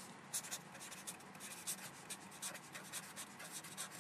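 Marker pen writing on paper: a run of short, faint scratchy strokes as words are written out by hand.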